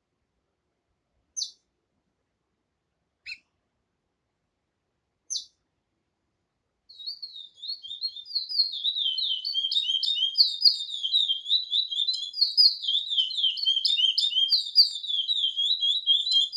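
A songbird singing: three single short chirps about two seconds apart, then about seven seconds in a fast, continuous twittering song starts and keeps going.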